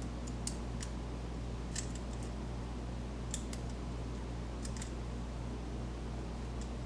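Lock-pick rake working the pins of a Master Lock padlock under torsion-bar pressure, giving scattered light metallic clicks and scrapes at an uneven pace. A steady low hum runs underneath.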